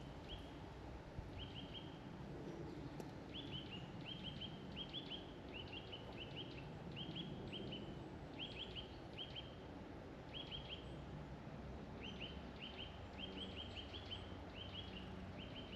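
Faint woodland ambience: a songbird repeats short chirps in quick runs of two to four notes, over a low steady background rush.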